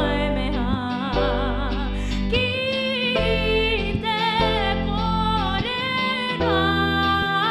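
A live pop band: a female lead singer holds long notes with vibrato over electric bass, electric guitar and keyboard. The bass changes notes every second or two.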